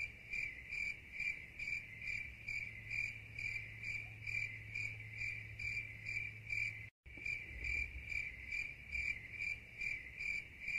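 An insect chirping in a steady rhythm, about three high chirps a second, with a brief break about seven seconds in.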